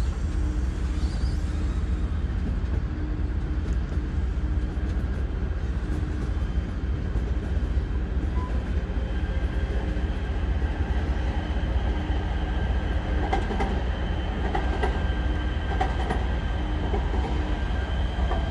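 Amtrak Superliner bilevel passenger cars rolling slowly through a rail yard, a steady low rumble of wheels on track. In the second half, sharp clicks and a thin wheel squeal join in.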